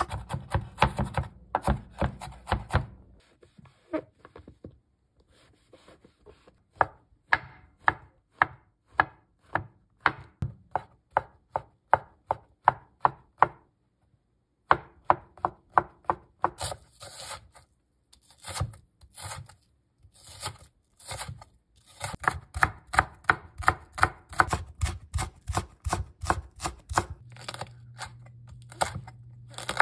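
Kitchen knife chopping vegetables on a wooden cutting board: mincing onion, then mushrooms, then a green chili, in runs of quick even strokes broken by short pauses, the strokes coming faster near the end.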